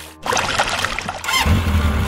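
Splashing, trickling water sound effect dubbed over the toy rescue boat; a steady low rumble comes in about a second and a half in.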